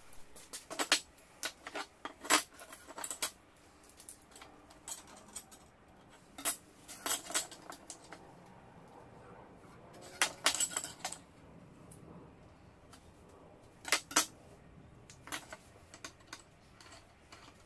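Flat steel bar stock being handled on a workbench: sharp metallic clinks and knocks as the pieces tap against each other, the bench and the steel vise, coming in short scattered clusters.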